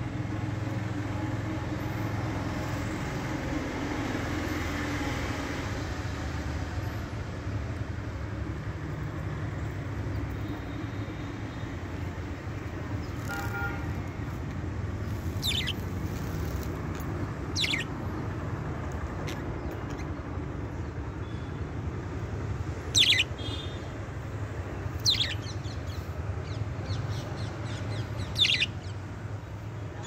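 Caged budgies giving a handful of short, sharp chirps, spaced out and mostly in the second half, over a steady low background rumble.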